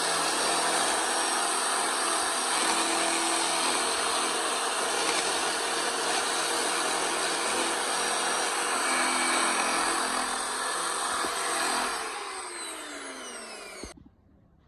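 A power tool running steadily against wood, then its motor winding down with a falling pitch and stopping near the end.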